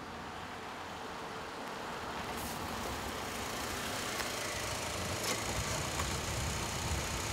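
Steady roadside rumble and hiss, with the low rumble building slightly. There is a faint click about five seconds in as the car door opens.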